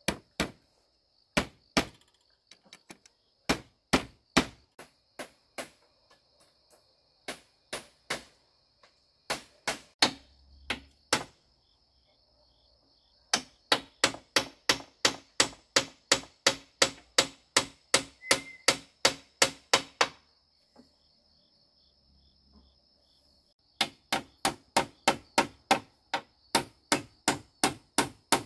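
Repeated hammer blows: scattered single and paired strikes, then steady runs of about three blows a second. A steady high insect buzz runs behind them.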